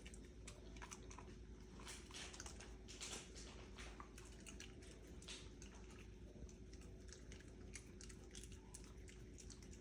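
A puppy faintly chewing sunflower seeds, a scatter of small crunches and clicks as it cracks the shells open to get the kernels out.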